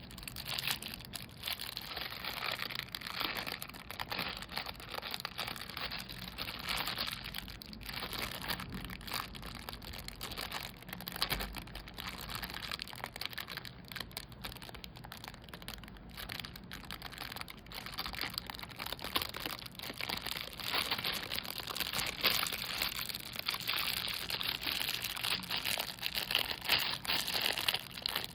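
Plastic packaging crinkling and rustling as it is handled, in uneven bursts, with now and then a tearing sound.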